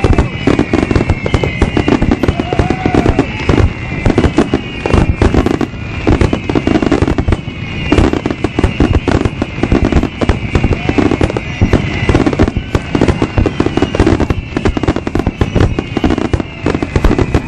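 Fireworks display: a continuous barrage of aerial shells bursting, many loud bangs a second overlapping with crackle.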